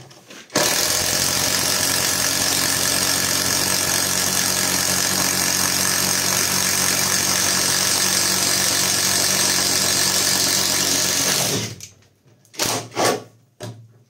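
Catpower 4226 cordless impact driver boring into an old wooden beam with a 24 mm self-cut spade bit, running steadily at full speed for about eleven seconds, then stopping. A few short bursts follow near the end.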